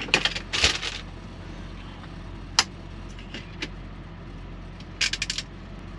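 Western Star semi-truck's diesel engine idling steadily, heard inside the cab, with a few sharp clicks in the first second, one more near the middle and a quick run of clicks about five seconds in.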